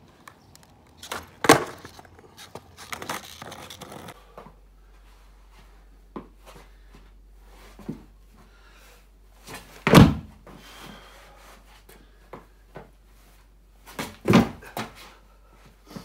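Skateboard knocking and slapping down as a skater pops and lands flatground tricks: a few sharp, loud thuds with some lighter clacks between them, the loudest about a second and a half in, at the middle and near the end.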